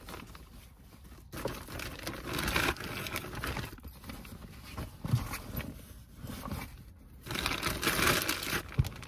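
Thin plastic laundry bag crinkling and rustling in uneven bursts as clothes are pushed into it and handled. It is louder about two to three seconds in and again from about seven seconds on.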